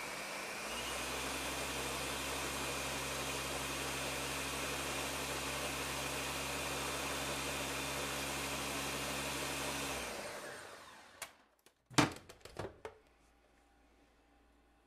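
Ninja countertop blender running at a steady speed, blending a thick fruit smoothie, then winding down about ten seconds in. A sharp clack and a few lighter knocks follow about two seconds later.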